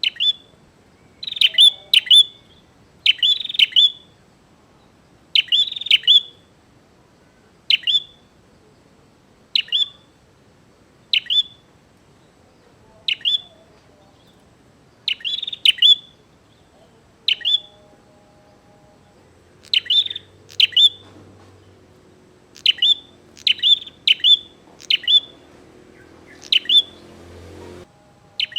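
Prinia (prenjak) calling vigorously, giving short, sharp chirps every second or two, often in quick pairs. These are the challenging calls of a male ready to fight.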